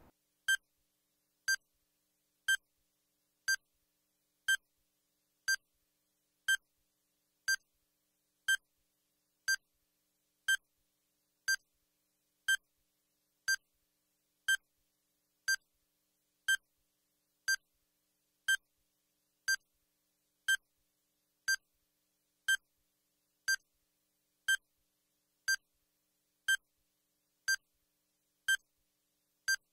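Countdown timer beeping once a second: a short, high electronic beep each second with silence in between.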